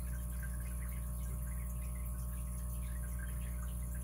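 Steady low electrical hum like mains hum, with faint scattered small ticks.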